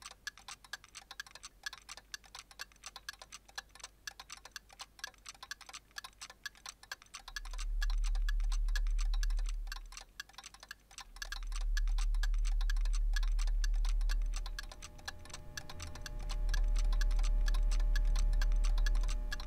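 Film soundtrack of rapid clock-like ticking, joined by three deep bass swells from about seven seconds in, with a held chord of sustained notes coming in during the last few seconds.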